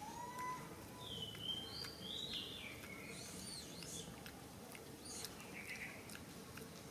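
Birds calling: several thin whistled calls and chirps, some gliding up and down in pitch, over a faint steady outdoor background.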